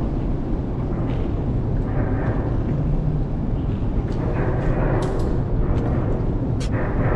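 Steady low rumble of a fishing boat under way, with a few short sharp clicks in the second half.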